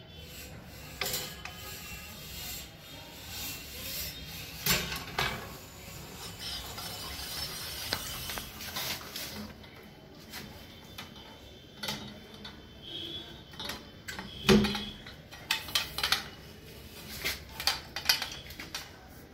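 Metal clinks and knocks from a stainless-steel hermetic sampler tube being handled and set down on a steel plate. The loudest is a single knock about three-quarters of the way through, followed by a run of quick light clicks.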